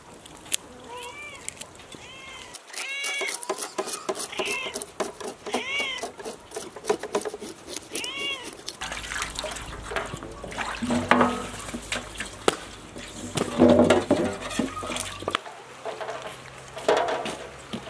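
A domestic cat meowing repeatedly, about six short meows that each rise and fall in pitch. Then a knife working on a raw whole fish on a metal tray, with scraping, clicks and wet sounds.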